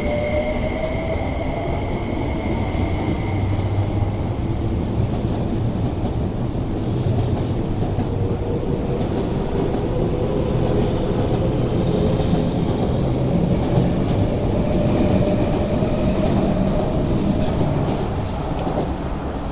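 MTR East Rail Line electric multiple-unit train pulling out of a station and running past along the platform: a steady rumble of wheels on rail, with motor whine that slowly rises in pitch as it gathers speed.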